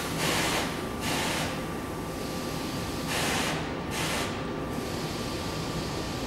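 Frecciargento high-speed train creeping into the platform, its pneumatic brakes letting out four short hisses of compressed air over a steady low rumble and a faint steady high hum.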